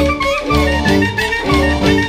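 Klezmer ensemble of clarinet, violins, accordion, double bass and percussion playing a dance tune, the melody over a steady, regular bass beat.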